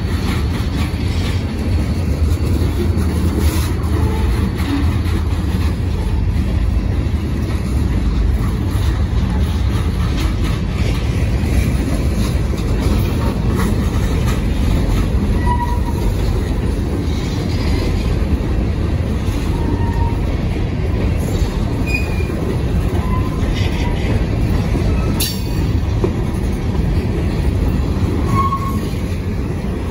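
Freight train's covered hopper cars rolling past: a steady rumble and clatter of steel wheels on the rails, with brief high wheel squeals now and then.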